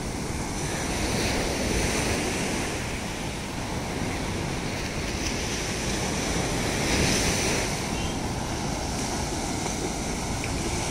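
Ocean surf breaking on the shore, swelling and easing in waves, with wind rumbling on the microphone.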